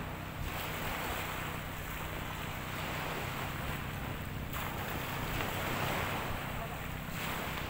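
Small sea waves washing in the shallows, the noise swelling and easing every few seconds, with wind buffeting the microphone.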